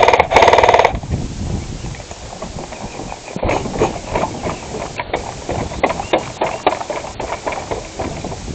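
A rapid burst of shots from a rifle-style sport blaster, lasting under a second at the start. It is followed by irregular footsteps knocking on a wooden deck and stairs.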